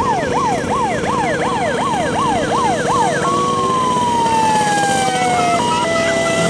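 Electronic siren sounding a fast yelp, about two to three rising-and-falling sweeps a second, then switching to one long slow falling wail, and near the end to a short alternating high-low two-tone.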